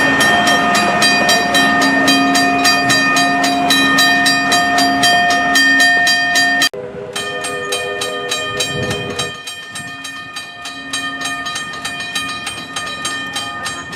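Heritage railway engine running with a regular beat of about five strokes a second and steady tones over it. An abrupt cut partway through switches to a quieter take of the same kind of running.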